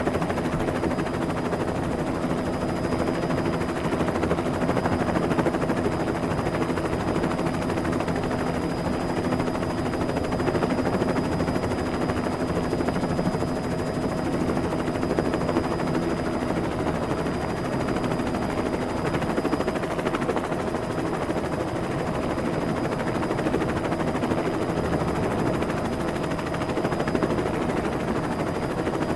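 Helicopter sound effect: steady, rapid rotor chop with a thin, high, steady whine running through it.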